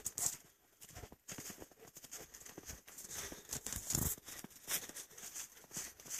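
Footsteps crunching in shallow snow and brushing through dry grass and undergrowth: an irregular run of soft crunches and rustles.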